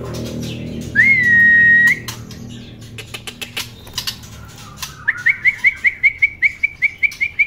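Young male white-rumped shama (murai batu) calling in its cage: one loud held whistle lasting about a second, starting about a second in, then from about five seconds in a fast run of short rising notes, about six a second. Background music fades out over the first two seconds, with a few faint clicks from the bird moving about.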